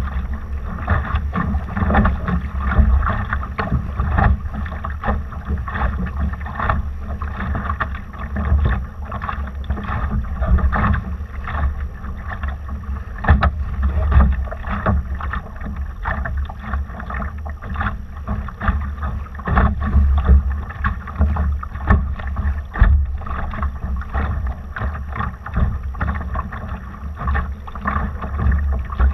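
Water splashing and rushing along a Laser dinghy's hull under sail, in an irregular stream of slaps. Wind buffets the microphone with a deep, fluttering rumble.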